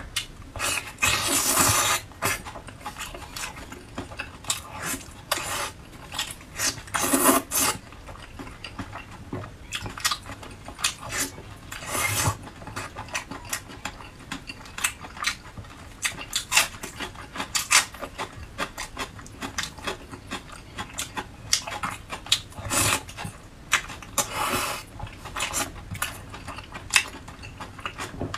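Close-miked eating sounds of a person chewing soft, fatty red-braised pork belly: many wet mouth clicks and lip smacks, with a few louder, longer wet bursts.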